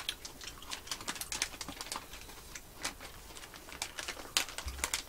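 Close-up eating sounds: an irregular run of small clicks and smacks from chewing and from chopsticks working food in ration packs and metal trays, with a louder click and a brief low thump near the end.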